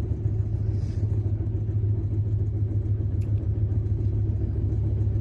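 Steady low rumble of a moving Indian Railways first AC passenger coach, heard from inside the compartment: the train running along the track at speed.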